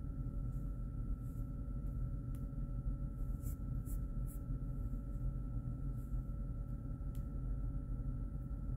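Steady room tone: a constant low hum with a thin, high, steady whine above it, and a few faint ticks about halfway through.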